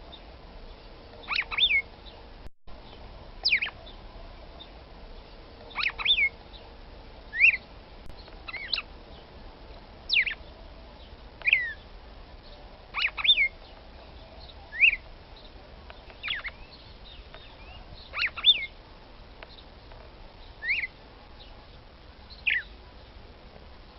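Female red-cowled cardinal (Paroaria dominicana) calling: short, sharp notes, each a quick downward sweep, repeated about every one and a half seconds, now and then in quick pairs.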